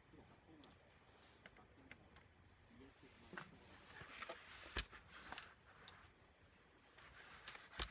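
Light clicks, taps and short scrapes of laptop parts being handled and worked on during disassembly, busiest in the middle, with a sharp click a little after halfway and another at the end.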